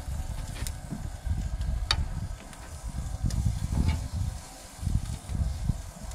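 Raw chicken pieces being laid with metal tongs onto a hot gas grill's grates and starting to sizzle, with four sharp clicks of the tongs against the grate. A low, uneven rumble sits underneath throughout and is the loudest sound.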